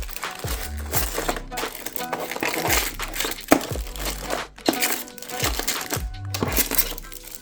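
Background music with a steady beat, over crinkling and rustling as small items are handled.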